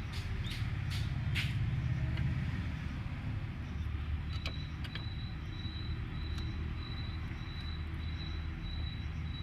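Low, steady rumble of a motor vehicle engine running, with several sharp metallic clicks in the first second and a half and another about four and a half seconds in, from drum-brake shoe parts being handled and fitted. A faint, steady high whine comes in about four seconds in.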